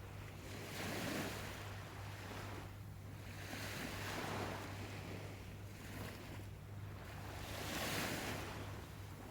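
Sea waves washing onto a shore: surges of surf that swell and fade about every three to four seconds, over a steady low hum.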